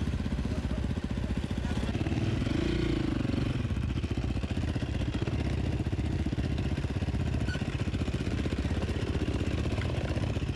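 Enduro dirt-bike engine running with a steady, rapid low pulse.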